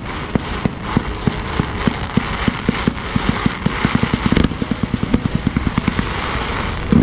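Fireworks display: a rapid string of bangs and pops from a ground-level barrage over a steady crackling hiss, the reports speeding up to about seven a second in the second half.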